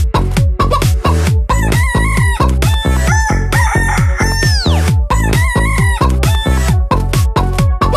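Electronic dance track built on a looped rooster crow, the same crow recurring about every four seconds over a fast, heavy kick-drum beat.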